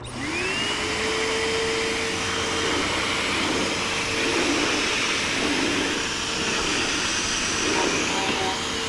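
Hoover WindTunnel Rewind Plus bagless upright vacuum switched on: the motor spins up with a quickly rising whine in the first half second, then runs steadily with an even whine and rushing air.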